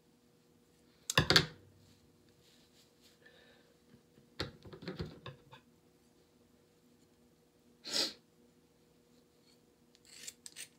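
Scissors cutting through thick dreadlocks in a few separate bouts. The loudest comes about a second in, a quick run of cuts follows around the middle, then a single one and two short ones near the end. A faint steady hum lies underneath.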